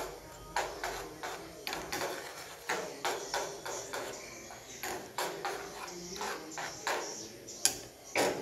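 Metal spoon scraping and clinking against a ceramic plate as it spreads rice. The strokes are irregular, roughly two a second, with one sharper clink near the end.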